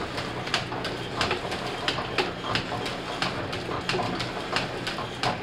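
Line-shaft-driven metal shaper running through its strokes, taking a light cut with a single-point tool and indexing over between passes. A steady low hum carries rhythmic clicking at about three a second.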